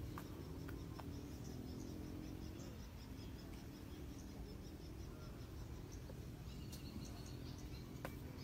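Outdoor ambience: rhythmic, high-pitched chirping of insects over a low, steady hum, with a few faint clicks.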